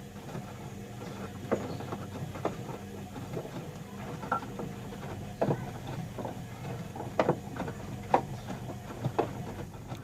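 Bauknecht Dynamic WA 1460 washing machine washing: a steady motor hum as the drum turns, with irregular soft knocks and splashes, roughly one a second, as the wet laundry drops inside the drum.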